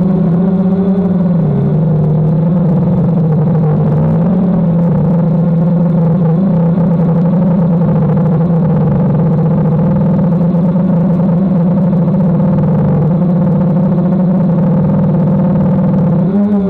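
DJI Phantom quadcopter's propellers and motors humming steadily, the pitch wavering slightly up and down as the motors adjust speed in flight.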